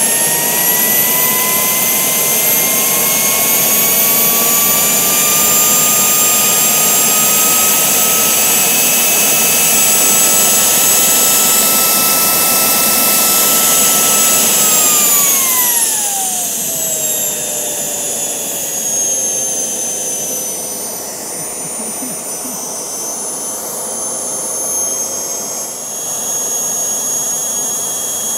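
Homemade Kamps-design gas turbine running on kerosene. Its whine climbs slowly over the first several seconds and holds, then drops sharply about halfway through and settles to a lower, quieter whine as the engine spools down.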